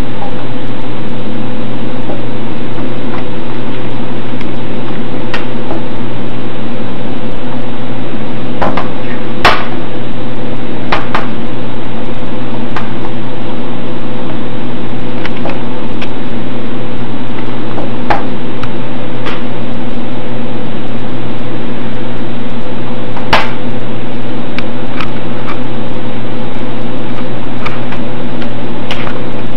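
Old hard disk drive running with a steady hum, broken by irregular sharp clicks and ticks at uneven gaps, a few much louder than the rest. These are odd sounds that the owner has never heard a drive make.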